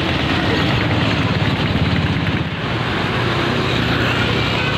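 Tour bus's diesel engine running loudly as the bus drives past close by, its low engine note over steady road noise.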